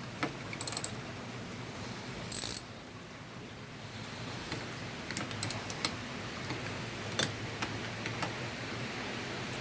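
Scattered metallic clicks and clinks of hand tools on the metal throttle body as it is taken apart, with a louder clack about two and a half seconds in and a quick run of clicks a few seconds later.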